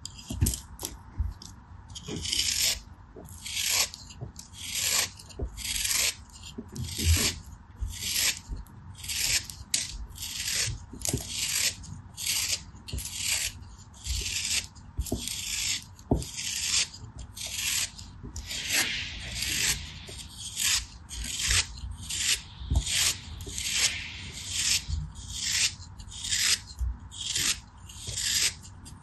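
Utility knife blade shaving slices off a packed block of kinetic sand: a dry, gritty scraping stroke repeated about one and a half times a second, starting about two seconds in.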